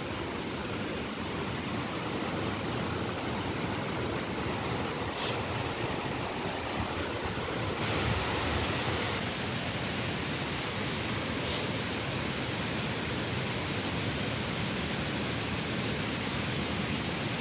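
Steady rushing of a river and waterfall, an even wash of water noise that swells a little partway through, with two brief faint high blips.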